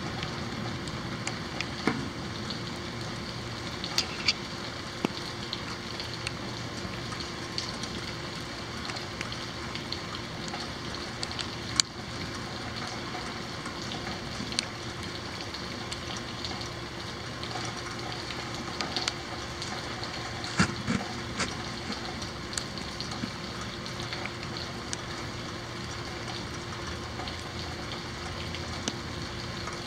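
Steady rain falling, with irregular sharp ticks of drops striking nearby surfaces.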